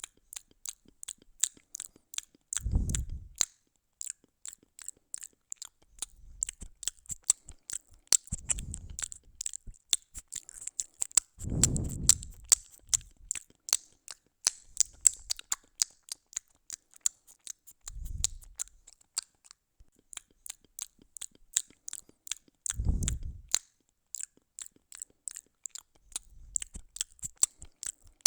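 Cat eating, a quick run of sharp crunching and chewing clicks, broken several times by short, low, dull thuds.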